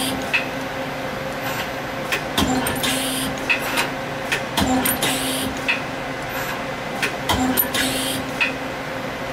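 Doosan/Daewoo Puma 2500LSY CNC lathe running under power: a steady hum with sharp clicks, short tones and bursts of hiss that repeat about every two to three seconds as the machine cycles.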